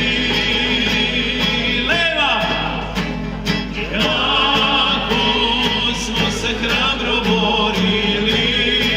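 Mixed choir singing a Serbian folk song with held, wavering notes, accompanied by guitar and a hand drum keeping a steady beat. A voice slides down in pitch about two seconds in.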